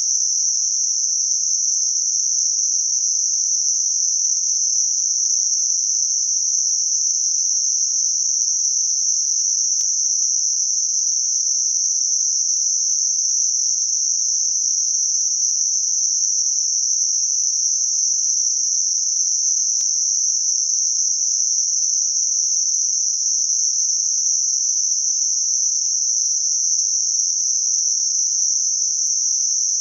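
Synthesised Gaussian-filtered narrowband noise for tinnitus masking: a steady, unbroken high-pitched hiss confined to a narrow band in the upper treble, with no rhythm or change.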